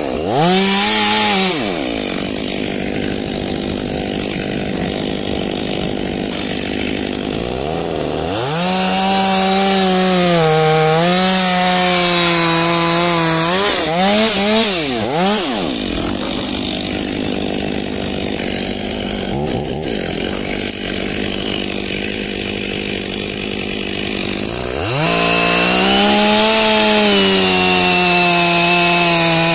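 Stihl MS 500i fuel-injected two-stroke chainsaw sawing through logs at full throttle, easing off between cuts. The revs dip and climb at the start, hold high for a cut from about a third of the way in with a few quick blips, drop back, then rise again for another cut near the end.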